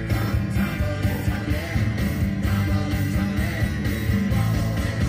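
Rock music with a singing voice and guitar over a steady beat.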